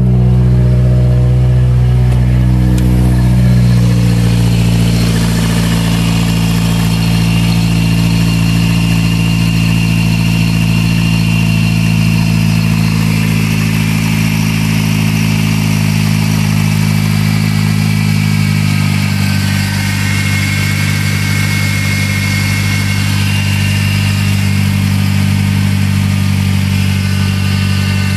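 Mazdaspeed 6's turbocharged 2.3-litre four-cylinder idling steadily, with a faint high whine over it. It has just been started after its carbon-clogged EGR valve was cleaned out.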